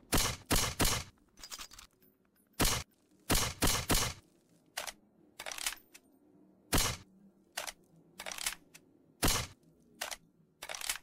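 TMP machine pistol: close to twenty separate sharp metallic clacks and cracks, irregularly spaced, some coming in quick pairs or threes, each with a short ringing tail.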